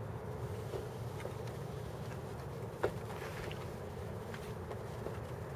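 Steady low hum of distant night-time city and freeway traffic, raised by the camera's automatic gain, with a few faint clicks and one sharper click about three seconds in.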